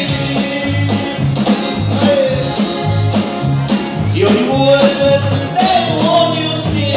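Conjunto band playing live: bass notes on a steady beat with drums, under a melody line.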